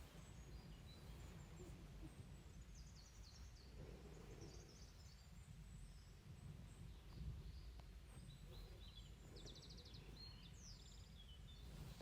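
Near silence: a faint steady low rumble of room noise, with faint high bird chirps now and then and a couple of soft breaths.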